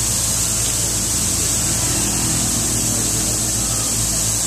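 Steady low hum and hiss of city street traffic, with no distinct events.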